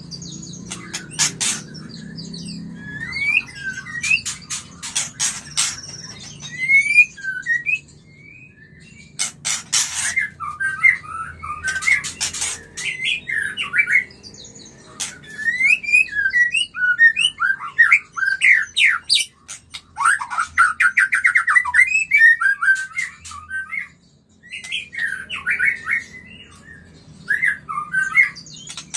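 White-rumped shama (murai batu) singing, the song of a bird in breeding condition: a varied run of clear whistled and chirping phrases with a fast trill about two-thirds of the way through. Sharp clicks are scattered between the phrases.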